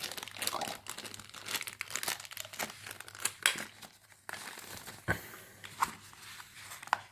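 Crinkling of the packaging of a Kinder Surprise egg's toy being handled and opened: irregular crackles that ease off briefly about halfway through, then continue.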